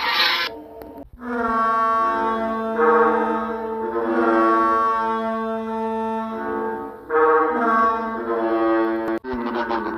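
Imitated dinosaur calls: a rough roar-like burst, then long deep horn-like calls held at steady pitch that shift note a couple of times, and another rough burst near the end.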